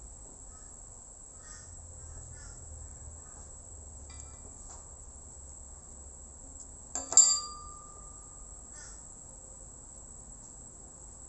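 Needle-nose pliers bending thin metal wire: faint small ticks, then one sharp metallic click with a short ring about seven seconds in. A steady high-pitched tone runs underneath throughout.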